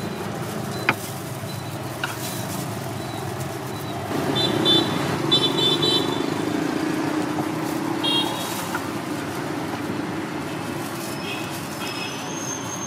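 Street traffic going by, with a vehicle passing louder about four to eight seconds in and several short, high vehicle-horn toots. A single sharp knock about a second in.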